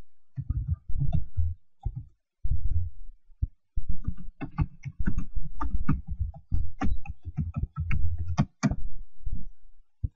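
Typing on a computer keyboard: irregular key strikes with dull thuds, coming thicker and clickier after about four seconds.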